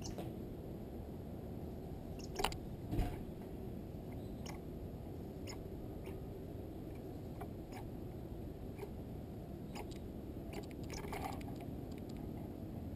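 Scattered small clicks and taps from a squirrel moving over a wooden bird feeder, with two louder knocks about two and a half and three seconds in and a quick run of clicks near the end as it reaches the seed tray, over a steady low background rumble.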